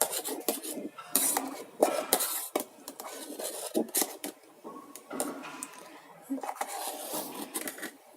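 A spoon clinking and scraping against the inside of a steel electric kettle, in irregular knocks while stirring the reducing milk.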